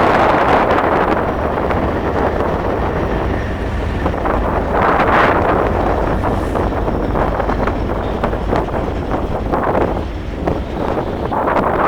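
Strong wind buffeting the microphone in gusts, over the low, steady rumble of a CN manifest freight train.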